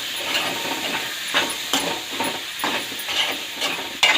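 Ground sesame-and-coconut masala paste sizzling in a hot pan of potato curry while it is stirred, with irregular scraping strokes against the pan over a steady hiss.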